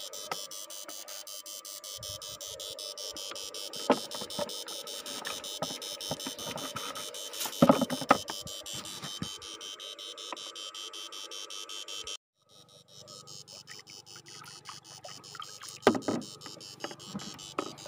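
Battery-powered electrofishing inverter running: a steady electronic buzz with rapid, even pulsing. A few knocks sound about 4 and 8 seconds in and again near the end, and the sound drops out briefly about 12 seconds in.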